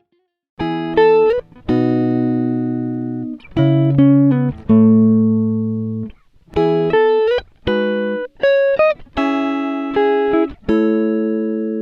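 Instrumental background music: plucked-string chords and notes in short phrases with brief gaps, starting about half a second in.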